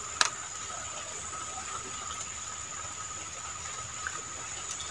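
Steady hiss of a small forest stream, with a steady high-pitched ringing over it and one sharp click just after the start.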